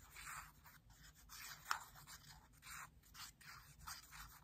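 Faint scratching of a fine-tip glue bottle's nib drawn across paper, in a string of short strokes about two a second, one sharper scrape near the middle.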